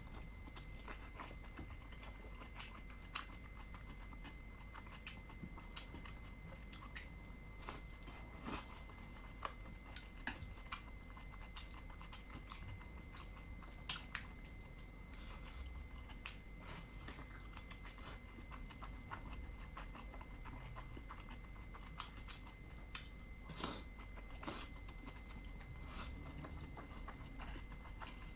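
Close-miked chewing of dumplings: irregular small clicks of biting and chewing, with a faint steady high tone underneath.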